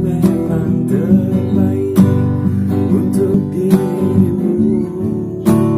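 A man singing a slow Indonesian pop ballad while strumming an acoustic guitar, with steady chord strokes under the voice.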